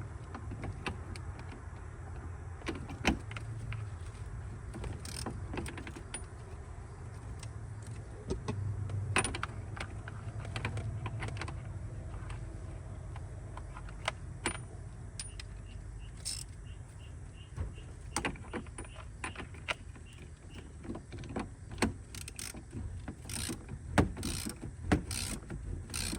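A 21 mm socket on a hand wrench working a steering wheel's centre bolt loose: scattered metallic clicks and clinks at irregular times, thicker near the end, over a low steady hum.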